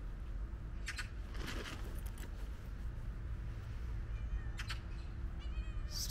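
A stray cat meowing faintly as it runs up, starting about four seconds in, over a steady low rumble.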